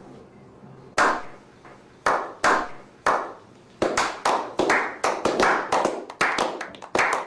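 Hand clapping: sharp single claps about a second apart at first, then speeding up to three or four claps a second.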